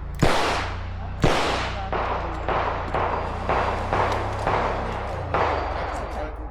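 Handgun shots on a match stage: two loud, sharp shots about a second apart near the start, each with an echoing tail, then a string of quieter shots at about two a second.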